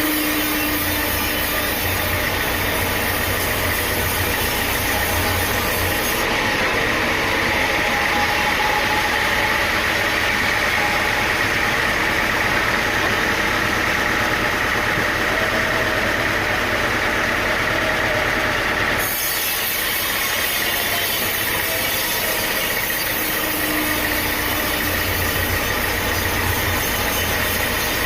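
Sawmill machinery running steadily: an engine hum under a steady whine. The sound changes abruptly about six seconds in and again about nineteen seconds in.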